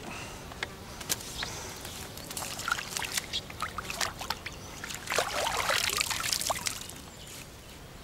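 Water splashing and dripping as a freshly caught small carp is returned to the lake, with scattered small splashes and a longer, louder splash about five seconds in.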